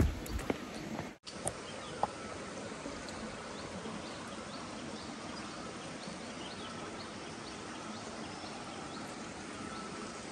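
Forest ambience: a steady hiss dotted with many short, high chirps from small creatures, with a faint steady high tone. A few low knocks sound in the first second.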